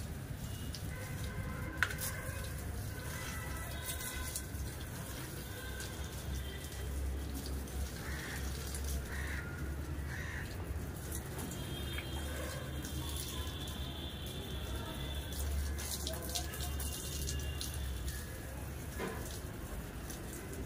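Water from a garden hose pouring and splashing onto the soil of potted plants, over a steady low rumble.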